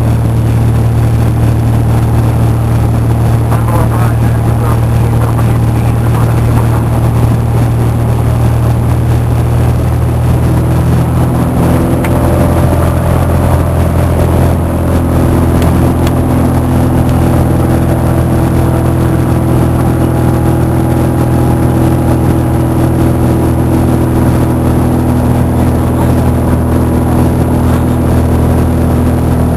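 Cessna 172's piston engine and propeller droning steadily in flight; the engine note shifts about eleven seconds in.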